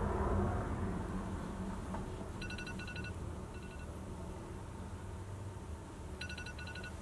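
Electronic alarm beeping: a quick run of short, high beeps, followed by a shorter run, repeating about every four seconds. Under it a low rumble fades away over the first couple of seconds.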